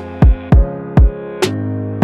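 Electronic background music with a beat: deep kick-drum thumps, a sharp snare-like hit near the end, and sustained synth chords underneath.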